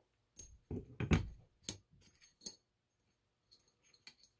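Metal tools and a small metal workpiece being handled and set down on a metal plate: a cluster of knocks and clicks, the sharpest click about a second and a half in, then a few faint ticks near the end.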